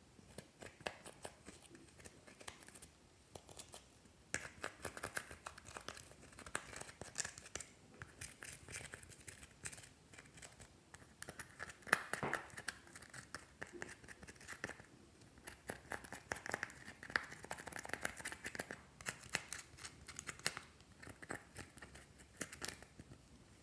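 Thin metal pick scraping and breaking up pressed eyeshadow in the pans of a palette: a dense run of small scratchy crackles and crumbles, pausing briefly twice.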